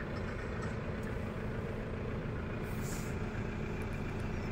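Tractor diesel engine running steadily, heard from inside the cab as a low, even drone.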